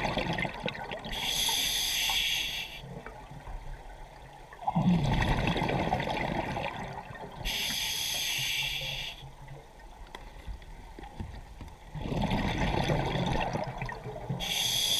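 Scuba diver breathing through a regulator underwater: a hiss with each inhalation, then a bubbling rush with each exhalation. The breaths are slow and even, about one every six or seven seconds.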